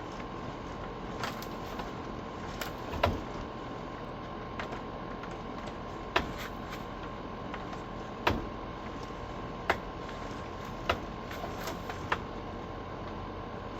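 A few irregular sharp knocks and clicks, about seven in all, the loudest a few seconds in, over a steady background hum.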